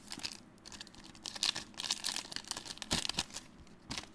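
Foil booster-pack wrapper crinkling in the hands as the cards are pulled out, in irregular crackles with a couple of sharper snaps near the end.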